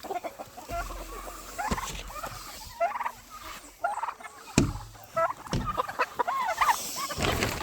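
A mixed flock of chickens and turkeys calling, many short sliding calls overlapping one another, with a couple of dull thumps near the middle.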